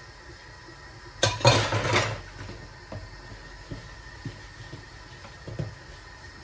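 Plastic dishes and a bowl clattering in a dish-drying rack as they are handled: one loud rattling clatter about a second in that lasts about a second, then a few light knocks.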